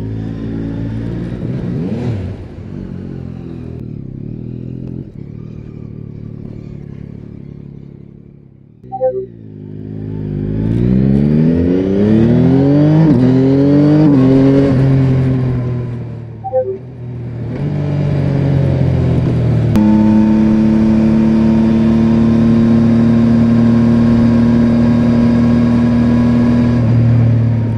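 Yamaha Tracer 9's 890 cc CP3 inline-three engine pulling hard, its pitch climbing again and again as it shifts up through the gears. Near the end it settles into a steady, even drone at cruising speed.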